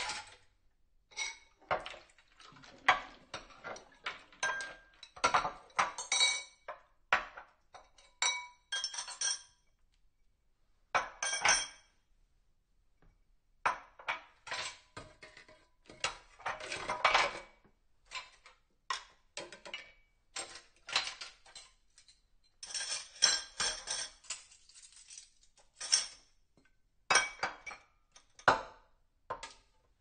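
Dishes being washed: plates and cutlery clinking and clattering against each other in irregular bursts, with short ringing clinks and a couple of brief pauses.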